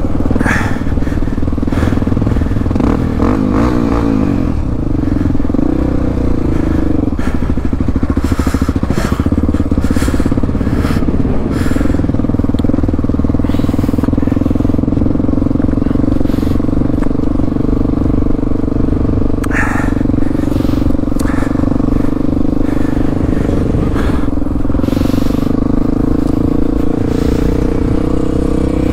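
Motorcycle engine running at a steady, nearly constant speed, with scattered knocks and clatter.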